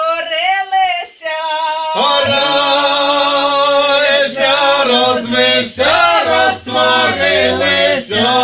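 A Ukrainian Christmas carol (koliadka) sung unaccompanied by a small folk choir. Higher women's voices sing first, and about two seconds in lower men's voices join in harmony.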